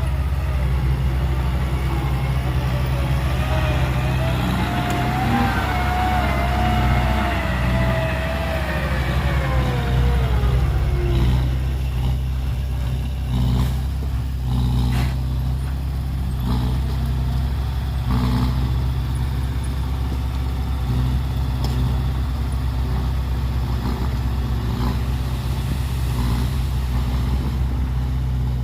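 Heavy diesel machinery engine running steadily, with a whine that rises and then falls away over the first ten seconds or so. Scattered knocks and clanks follow in the second half.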